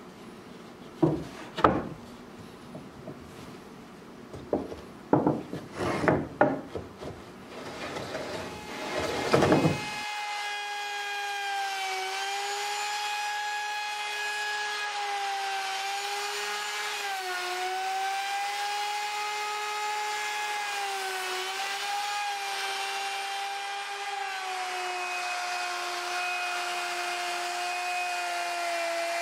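Wooden knocks and thumps as a slab and boards are handled and set into a plywood router sled. Then, about ten seconds in, a router takes over with a steady high whine that dips briefly in pitch several times as it flattens the sinker cypress slab.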